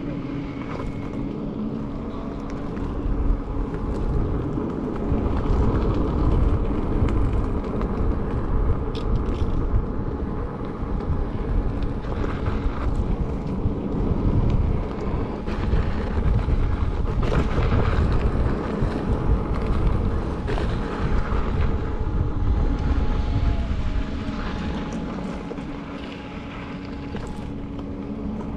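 Wind buffeting the camera microphone and tyre noise on gravel while riding an electric unicycle, with a faint thin steady whine over the rushing noise.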